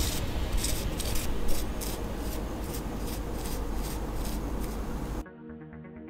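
Soft brush sweeping over a gold-leafed model car, brushing off loose gold leaf in a rustling scrape of repeated strokes, about two a second. It cuts off suddenly about five seconds in, leaving quiet music.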